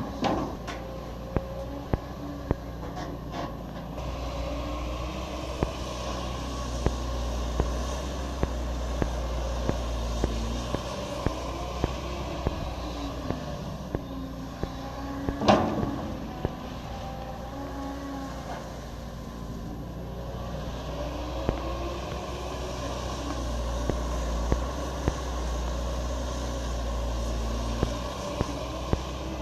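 Caterpillar 320D excavator working soil: its diesel engine runs steadily under load, with the pitch rising and falling as the hydraulics work. Short clicks recur throughout, and there is one loud knock about halfway through.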